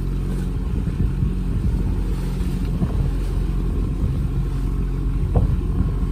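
Boat engine running steadily, with wind buffeting the microphone; a small knock about five seconds in.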